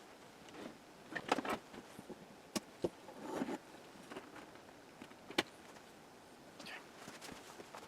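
Scattered clicks, taps and light knocks of hands handling objects, with a short rustle about three and a half seconds in.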